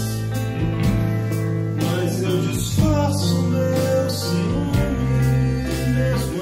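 A man singing over nylon-string acoustic guitar, electric guitar and electric bass playing together, the bass holding low notes that change every second or two.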